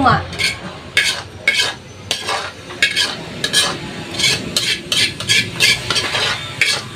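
A metal ladle scraping and clinking against a large black wok and a stainless steel tray as thick tomato stew is scooped out. The strokes are short and irregular, a few each second.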